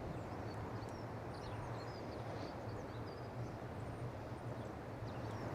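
Outdoor ambience: small birds chirping and twittering faintly over a steady low hum and background rumble.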